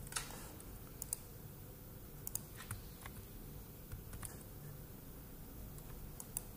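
Sporadic clicks of a computer keyboard and mouse, about ten irregular taps, some in quick pairs, over a faint low hum.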